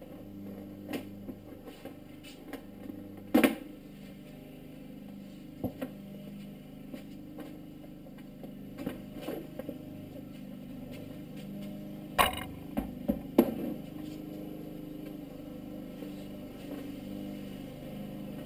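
Sharp plastic clunks and clicks from the green bodywork and black side panel of a Kawasaki KX dirt bike being handled and pulled off, loudest about three seconds in and twice more near twelve to thirteen seconds. A steady low hum runs underneath.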